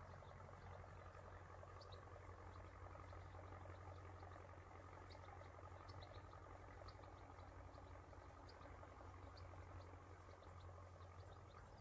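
Near silence: faint outdoor quiet with a low steady hum and scattered faint, short high ticks.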